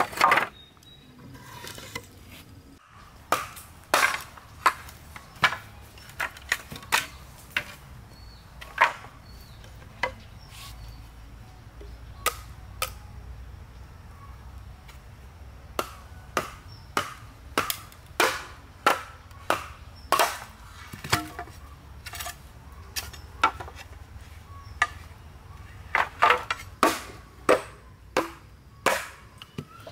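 Machete striking bamboo again and again, chopping and trimming bamboo poles: sharp woody chops at uneven intervals, sometimes in quick runs of two or three.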